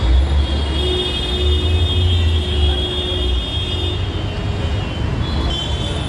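Busy street traffic: a steady low rumble of passing vehicles, with a long held high tone through the middle.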